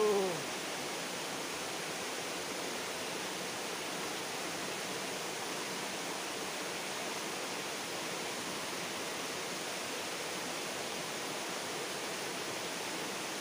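Steady rushing of stream water, an even hiss. Right at the start, a short falling pitched sound, the loudest moment.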